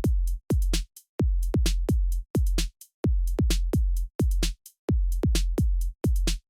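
Electronic background music: a drum-machine beat of deep bass kicks that drop in pitch, alternating with sharp hits, pausing briefly twice.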